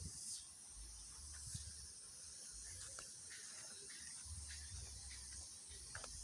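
Steady high-pitched chirring of insects such as crickets in the fields, with a low rumble that comes and goes and a few faint clicks.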